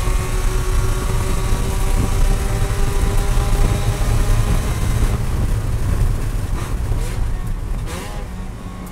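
Mazda Miata race car's four-cylinder engine running hard at high revs, heard from inside the car. About five seconds in the sound thins out and falls away as the car slows, with two short engine blips a second apart as it downshifts.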